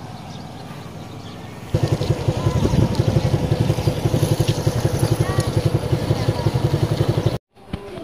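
An engine running with a fast, even putter, faint at first, then much louder about two seconds in, cutting off abruptly near the end.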